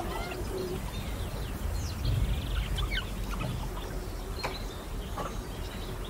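Wild birds chirping, with many short high calls scattered through, over a low rumble that swells about two seconds in.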